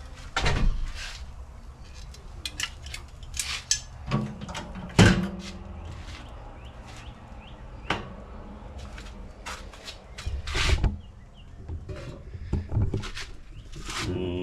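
Clatter of cooking utensils and dishes being handled: a string of clicks and knocks, the loudest one about five seconds in.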